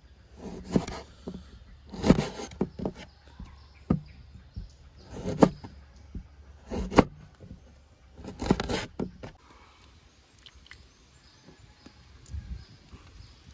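Large kitchen knife chopping through limes onto a wooden cutting board: six sharp chops about a second and a half apart, each ending in a knock on the wood. Only faint handling sounds follow near the end.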